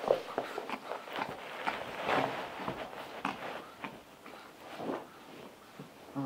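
Two Chihuahuas scuffling and scampering in play on a fluffy rug: irregular short scuffs, taps and rustles from paws and fur on the rug, busier in the first half and quieter near the end.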